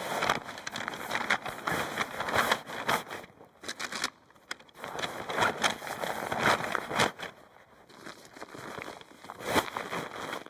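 Irregular rustling and crinkling with small clicks, as of material being handled, dropping almost to quiet briefly about four seconds in and again around eight seconds.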